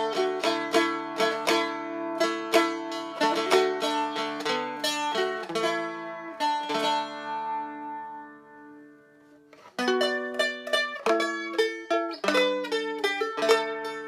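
A Seagull Merlin stick dulcimer (maple body, spruce top) is being picked: a quick melody on the doubled melody string over steadily ringing drone strings. About seven seconds in the notes ring out and fade almost to silence. Just under ten seconds in, the playing starts again with crisper, separated strums.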